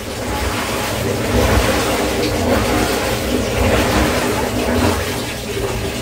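Maytag Commercial Technology washer filling on a regular cycle: a steady rush of water into the tub with a low rumble underneath.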